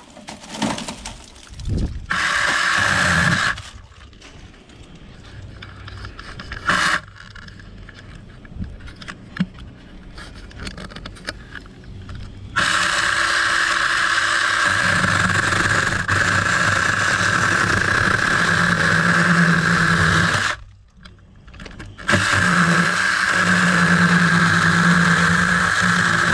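Mini electric chainsaw running in bursts as it cuts through thick woody shrub branches: a short run about two seconds in and a brief blip near seven seconds, then long steady runs with a high whine, one about twelve seconds in and another after a short pause near twenty-two seconds.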